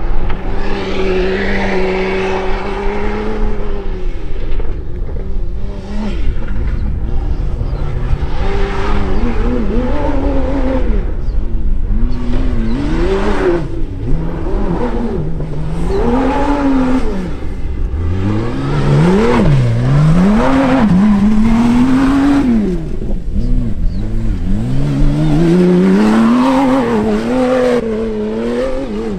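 Mini JCW Rally 3.0i's turbocharged three-litre six-cylinder petrol engine driven hard over sand. The engine note holds steady for the first few seconds, then rises and falls again and again as the driver works the throttle and gears, over a constant low rumble.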